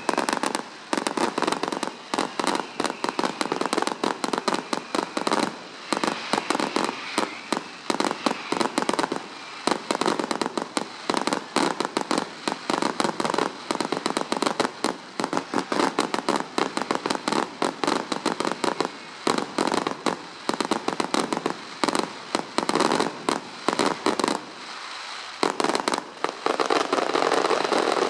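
Fireworks display: rapid, continuous bangs and crackles going off in dense volleys, with a short lull near the end before the crackling picks up again.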